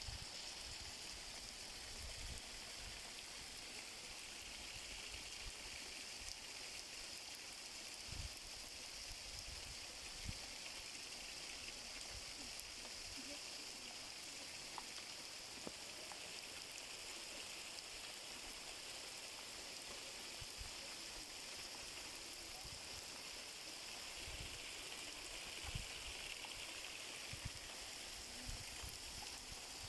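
Steady rainfall, a faint even hiss, with a few brief low bumps scattered through it.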